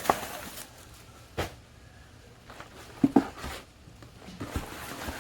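A few scattered knocks and rustles of a new plastic headlamp assembly being handled and turned over.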